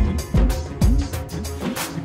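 Music with a steady beat: a deep kick drum about twice a second under a sliding bass line.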